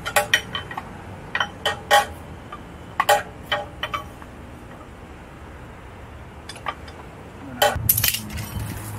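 Metal crash-cage parts and bolts clinking and tapping as they are handled and fitted: a run of sharp separate clinks over the first few seconds, a quiet pause, then a quick flurry of clinks near the end.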